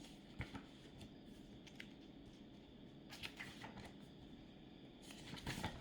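Faint rustling and a few soft clicks of handling, over quiet room tone.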